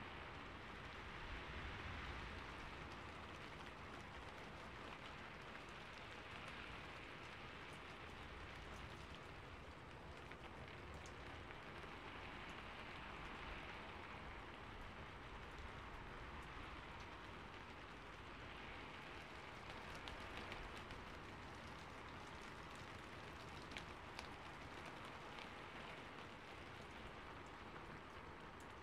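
Steady rainfall, a faint continuous hiss that swells and eases slowly, with a few sharper drop ticks here and there.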